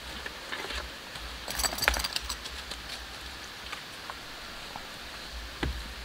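Short wooden log rounds knocking and clattering together as they are picked from a pile and handled. There is a cluster of knocks about one and a half to two seconds in, and a couple more near the end, over a steady outdoor hiss.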